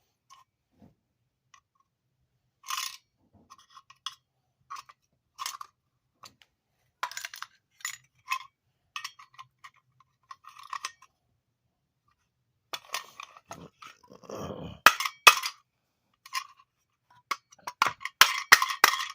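Hand tools and small electric motor parts clinking and scraping together during disassembly: scattered metallic clicks, one longer scrape about two-thirds of the way in, and several quick clinks close together near the end.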